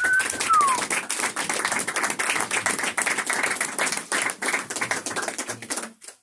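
Small audience applauding in a small room, with a short falling whistle near the start; the clapping cuts off suddenly near the end.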